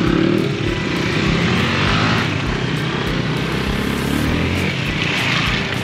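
Several motorcycle engines running together as a group of bikes rides off side by side, loud and continuous.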